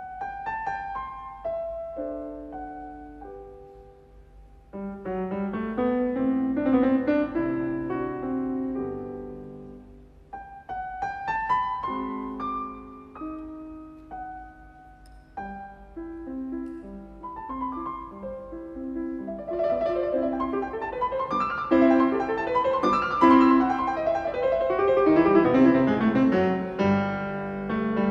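Background piano music, notes and chords in a gentle melody, growing fuller and louder about two-thirds of the way through.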